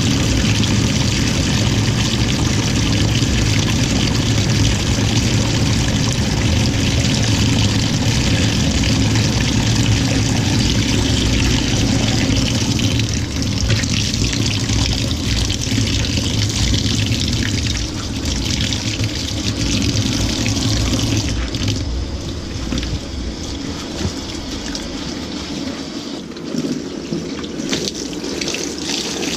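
LG 18 kg top-load washing machine in its rinse: water pouring and sloshing in the drum over a low hum, which drops away about 21 seconds in while the water sound carries on a little quieter.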